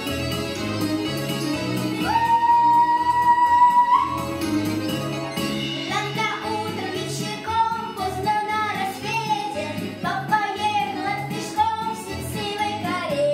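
A girl sings a humorous Russian folk song in folk style over a recorded backing track with a steady repeating bass line. A long held high note comes in about two seconds in, and the sung melody runs from about five seconds in.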